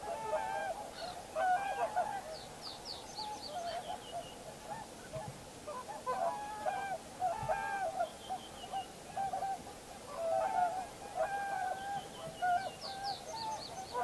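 A flock of common cranes calling: many short, overlapping honking calls that keep on throughout. A small bird's quick run of high, falling notes comes in about two and a half seconds in and again near the end.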